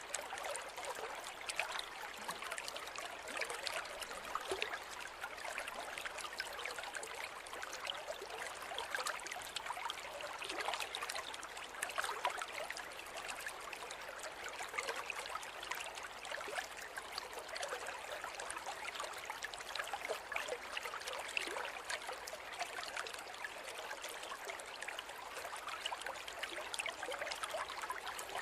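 River water flowing steadily over stones, a continuous babbling rush with many small splashes and trickles.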